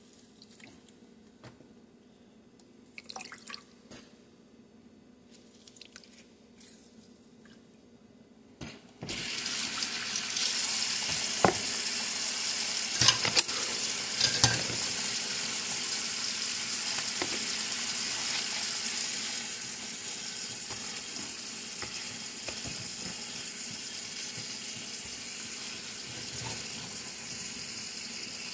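Kitchen tap turned on about a third of the way in, water running steadily into the sink, with a few knocks and clatters over it. Before that, only faint handling sounds.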